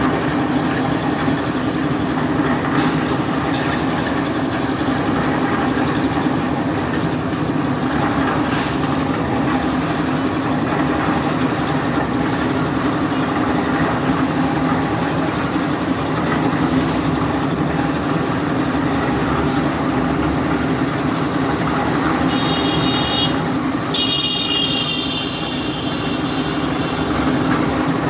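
Heavy truck engine running steadily in traffic. Near the end a vehicle horn sounds twice, the second blast longer.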